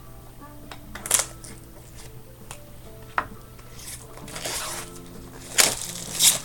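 Packaging of a 1999 Stadium Club baseball card box being handled and opened, with four sharp crackles and snaps of cardboard and wrapper and some rustling between them. Soft background music plays underneath.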